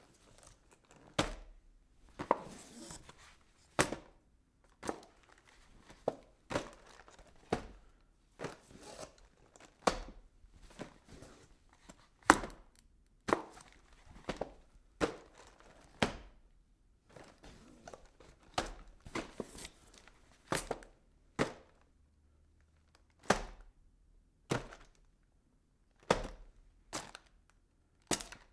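Packing boxes: cardboard boxes and their contents being handled and set down, giving a run of irregular thuds and knocks about one a second, with rustling and scraping between some of them.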